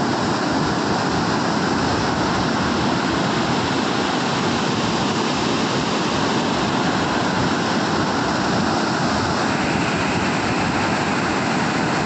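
Unchalli Falls on the Aghanashini river in muddy flood, heavy water plunging down the rock face with a steady, unbroken rush.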